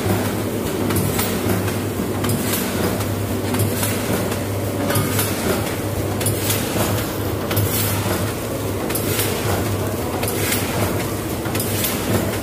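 Fully pneumatic collar-type vertical form-fill-seal packing machine with a volumetric cup filler running: a steady hum with repeated clacks of the sealing and cutting cycle, about once a second.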